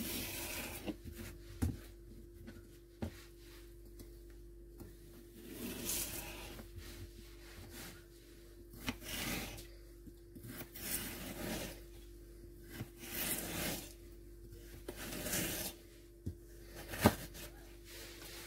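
Kitchen knife cutting a carrot into strips on a cutting board: irregular rasping slicing strokes, with a few sharp knocks, the loudest near the end.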